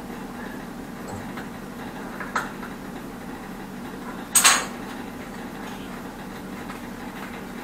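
Hand tools clinking against the metal pipe fittings behind a toilet: a light click about two seconds in and a louder metallic clatter about four and a half seconds in, over a steady low hum.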